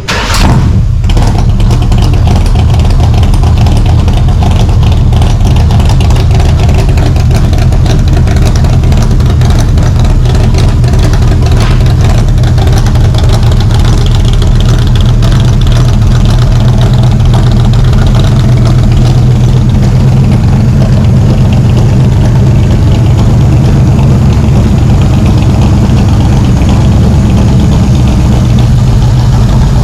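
Shelby Cobra's 427 V8 running loud and steady at idle, coming in suddenly with a short burst just after the start.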